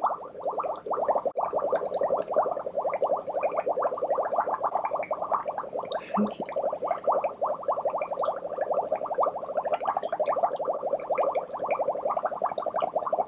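Breath blown through a drinking straw into a bowl of water, bubbling in a rapid, continuous stream.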